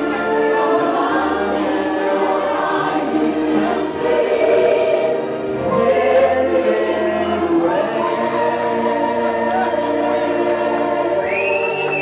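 Choir singing gospel-style music, with long held notes and a high sustained note near the end.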